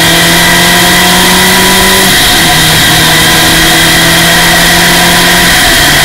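Formula Ford race car engine heard from the cockpit, climbing in revs under acceleration, with a sudden drop in pitch at an upshift about two seconds in, then pulling up again, with another change near the end.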